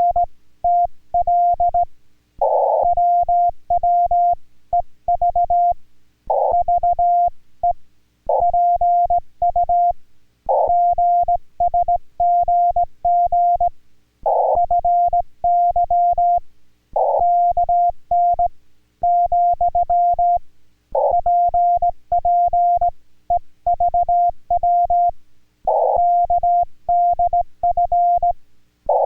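Morse code (CW) as heard on an amateur radio transceiver: a single steady tone keyed on and off in dots and dashes, in letter groups with short pauses and a faint click at each keying. It is the hand-sent code of a contact between two ham stations in Korean Morse code.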